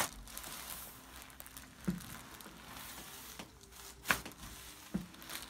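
Sharp cracks during a chiropractic adjustment: a loud crack right at the start and another about four seconds in, with soft low thumps about two and five seconds in and faint rustling between.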